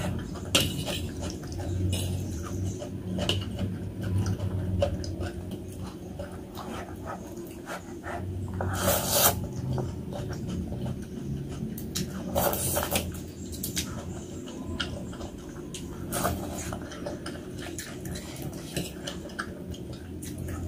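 Close-up eating sounds from spicy noodles and meatballs: many small wet chewing clicks, with a few louder bursts near the middle and later, over a steady low hum.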